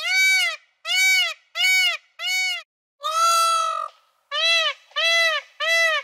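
Indian peafowl calling: a string of loud, nasal calls, each rising then falling in pitch. Four short calls are followed by a longer drawn-out one about three seconds in, then a quicker run of short calls about twice a second.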